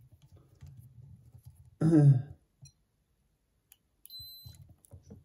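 A single short, high electronic beep about four seconds in from an Atlas ESR+ capacitor meter, its audible alert that an in-circuit capacitor measurement has finished. A brief wordless vocal sound comes about two seconds in.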